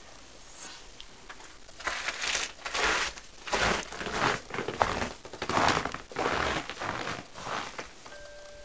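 Footsteps crunching in deep fresh snow, a steady series of steps that starts about two seconds in and stops near the end.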